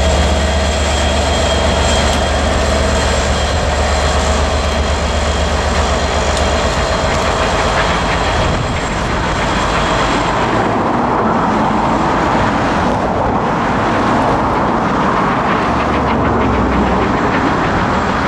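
Southern Railway Merchant Navy class three-cylinder steam locomotive 35028 Clan Line working away with its train, a steady noise of exhaust and coaches rolling on the rails. A deep rumble underneath drops away about seven seconds in.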